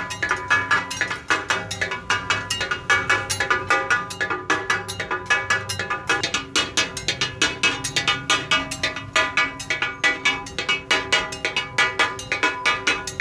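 Two steel spatulas striking a large flat iron griddle (tawa) in a rapid, even rhythm as a cook chops and turns meat on it. This is the clanging 'takatak' of Pakistani griddle cooking, and the metal rings after each strike.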